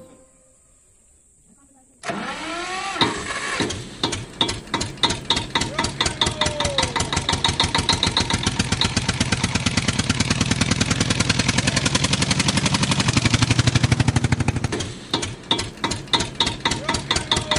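A tractor engine starts about two seconds in and then runs with a fast, even chugging, getting louder in the middle and dipping briefly near the end.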